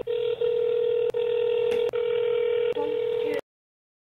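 Telephone on-hold audio playing through a smartphone's speaker, thin and limited like a phone line: a steady held tone with brief breaks about every 0.8 s, shifting to other notes near the end. It cuts off suddenly about three and a half seconds in.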